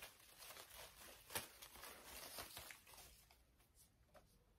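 Faint rustling of an artificial ivy vine's leaves as it is handled and stretched out between two hands, with one sharper click about a second and a half in.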